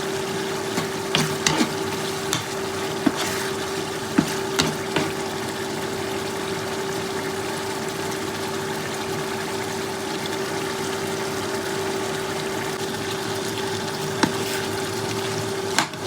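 Chicken sautéing with garlic, onion and tomato in a pan: a steady sizzle with a few sharp clicks from a utensil stirring, mostly in the first five seconds and again near the end. A steady low hum runs underneath.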